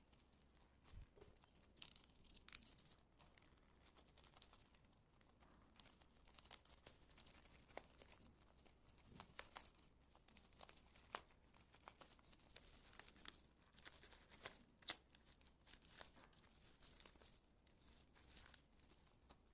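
Utility knife cutting and tearing open a plastic courier parcel, with the packaging crinkling: a faint run of irregular scratches, snips and crackles.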